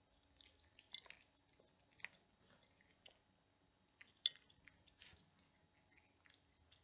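Cat chewing food up close: irregular small clicks and crunches, the sharpest about four seconds in.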